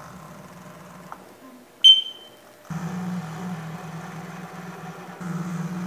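CNC milling machine's table axes traversing under power, a low steady motor hum that stops for a moment and starts again. A single short, high beep sounds about two seconds in.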